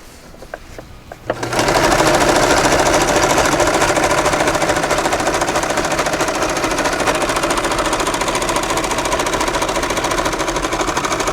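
Vintage all-metal Montgomery Ward sewing machine running at speed, stitching fabric with a steady rapid clatter that starts about one and a half seconds in, after a few light clicks. It is sewing a straight stitch on a machine just brought back from a trashed state.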